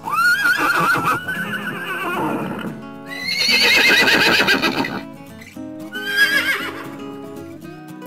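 Horses whinnying: three long, quavering whinnies, the second, about three seconds in, the loudest, over background music.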